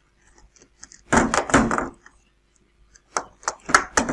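3D-printed plastic parts of a model plane, the nose landing-gear strut and the fuselage, handled and pushed together in a tight fit. A rubbing handling noise of under a second comes about a second in, then a quick series of sharp plastic clicks and knocks a little after three seconds.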